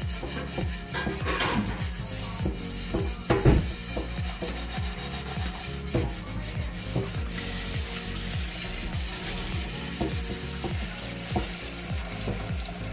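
Wooden pestle pounding and grinding roasted peanuts in a bowl: repeated dull knocks about twice a second with a gritty crunching scrape, one knock louder about three and a half seconds in.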